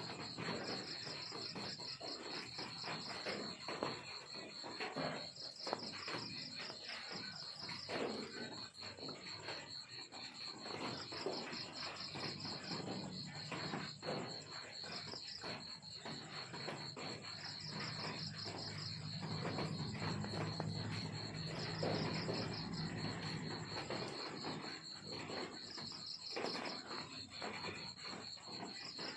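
Crickets chirping in repeated pulsed trills over a steady high-pitched buzz, with scattered light clicks and rustles. A low hum joins for a few seconds past the middle.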